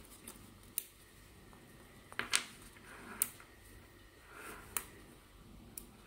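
Small magnetic balls snapping together with sharp clicks, five or six at irregular intervals, as a flat panel of balls is pieced together by hand.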